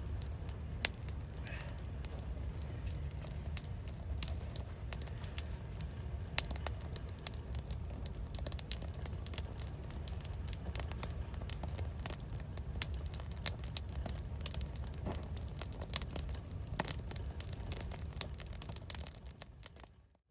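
Small wood fire in a SOTO Mini Hexa fire stand crackling, with irregular sharp pops over a steady low rumble. The sound fades out near the end.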